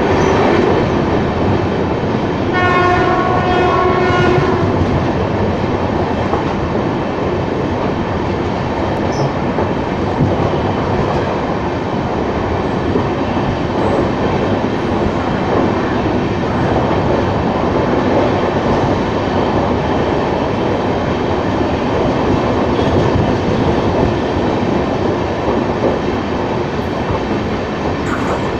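Express train running at speed, heard from the doorway of a coach: a steady rumble of wheels on rail. A train horn sounds one blast of about two seconds a few seconds in.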